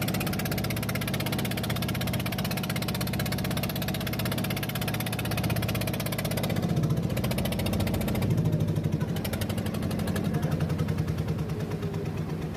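Small fishing boat's engine running steadily with an even pulsing beat; its note shifts a little after six seconds and again around eight.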